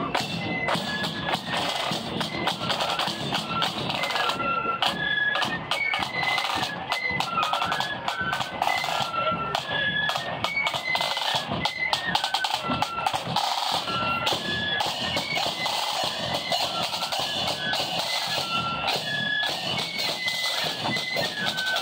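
Marching flute band playing a quick, stepping melody on flutes over snare and bass drums.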